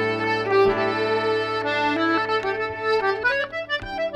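Irish traditional tune played by accordion, fiddle and guitar, the accordion out front with held melody notes over a steady bass, fiddle alongside and guitar strumming chords. The music thins briefly near the end, leaving the guitar strums more exposed.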